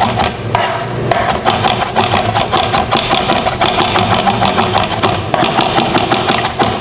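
Chef's knife chopping steamed leafy greens on a cutting board in a fast, even run of knocks, several strokes a second.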